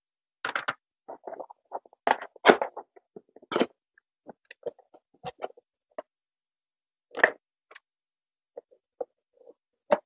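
Small cardboard box being opened and its contents handled: cardboard flaps, foam packing and plastic accessories rustling and knocking in short, irregular bursts, busiest in the first few seconds and sparser after.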